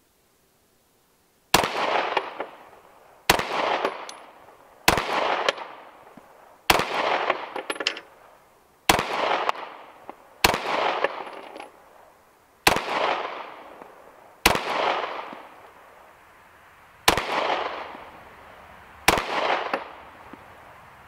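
CZ P10 C 9mm pistol fired ten times in slow, deliberate fire, a shot every one and a half to two and a half seconds, each crack trailing off in an echo. The ten shots empty its ten-round magazine.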